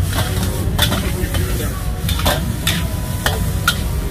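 Night-market background: a steady low rumble with a handful of sharp clinks and scrapes, like utensils working dishes or pans.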